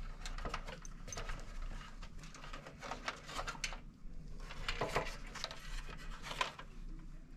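Gloved hands handling wire leads inside a sheet-metal heater housing: light, scattered clicks, taps and rubbing as the wires are routed and tied.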